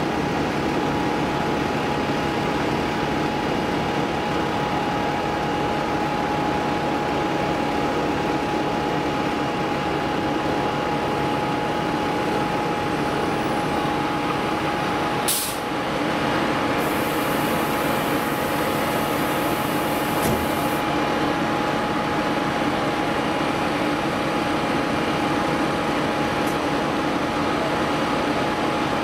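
Fire engine's diesel engine running steadily: a constant heavy drone with a thin whine over it. A high hiss lasts a few seconds just past halfway.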